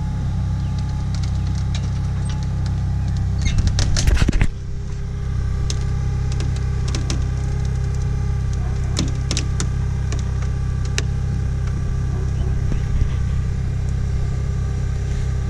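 Forklift engine running steadily at idle. A burst of loud metallic clanking and rattling about four seconds in, then scattered lighter knocks and clicks.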